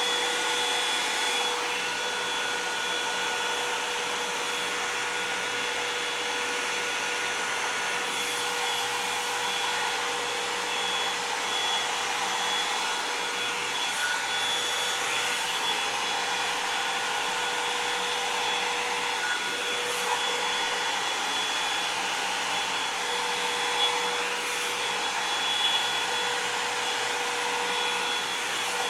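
Revlon One-Step hair dryer and volumizer, a hot-air brush, blowing steadily: an even rush of air with a steady motor whine and a few faint ticks.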